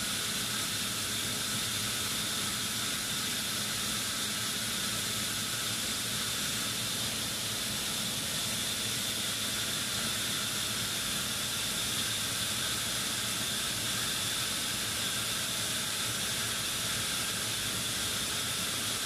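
Steady machine-room noise of running air-conditioning plant equipment: an even hiss with a low hum and a thin high whine underneath.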